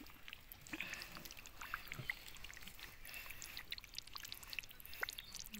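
Shallow muddy water and wet mud being disturbed: faint sloshing with many scattered small splashes and clicks.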